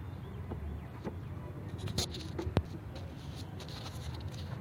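A few light clicks and knocks from parts being handled in a car's engine bay while the air-flow sensor is being taken out, over a steady low hum.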